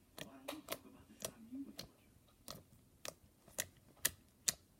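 Slime being handled and squished, giving irregular sharp clicks and pops roughly every half second.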